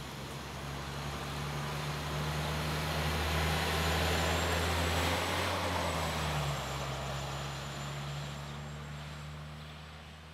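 City transit bus driving past: a steady engine drone with road noise that builds to its loudest about four to five seconds in, the engine note dropping around six seconds, then fading away.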